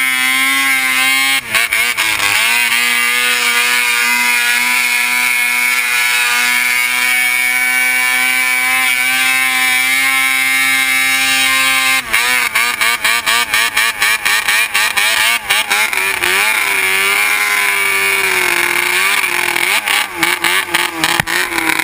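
Arctic Cat snowmobile engine held at steady high revs as the sled skims across water, with a brief dip in revs about a second and a half in. About twelve seconds in the revs start to waver up and down, broken by many quick choppy dropouts, and near the end they fall away as the sled comes off the water onto grass.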